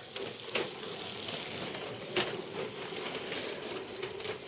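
Kyosho dNaNo 1/32-scale RC cars running on a track: a steady small-motor whir and hiss, broken by sharp clicks and clatter, the loudest about two seconds in.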